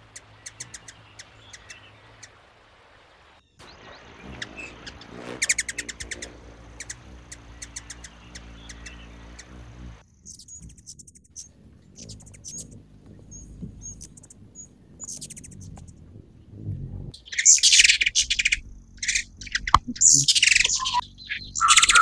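Ruby-throated hummingbirds giving rapid series of squeaky, mouse-like twittering chirps in bursts, louder over the last few seconds. This is the chittering that hummingbirds use in territorial chases and as a warning to rival males.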